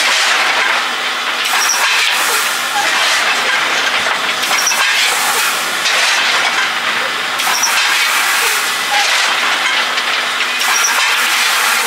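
Steam hissing from the standing C61 20 steam locomotive: a steady hiss that swells about every three seconds.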